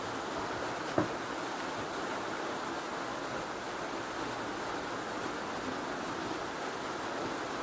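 Steady background hiss, with one short click about a second in.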